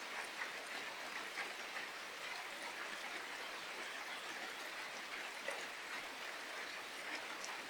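Steady rain falling, an even hiss with scattered individual drops tapping.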